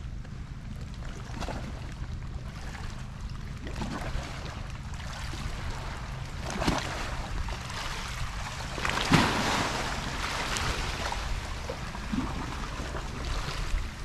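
Wind rumbling on the microphone, with small waves washing against the base of a concrete walkway; a louder wash of water comes about nine seconds in.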